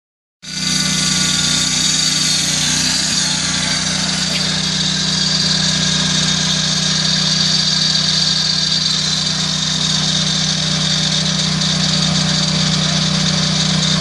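Lucas Mill portable sawmill's engine running steadily under load as its blade saws along a log, with a steady high whine over the engine note.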